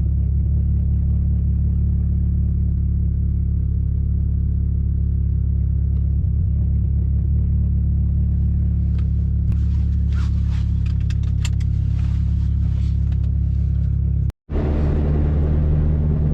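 In-cabin sound of a 2005 Chevy Cobalt SS's supercharged 2.0-litre four-cylinder engine cruising steadily with a low, even drone, which the owner says still has slight hiccups here and there after a misfire fix. Faint scattered ticks come in the second half, and the sound cuts out suddenly for a moment near the end.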